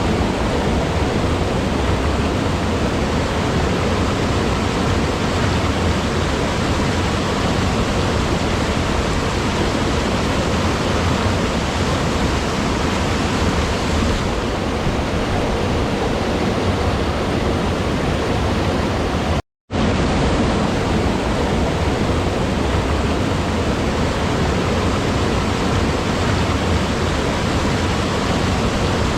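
Steady, loud rush of falling or fast-flowing water. It cuts out for a split second about two-thirds of the way through, then carries on unchanged.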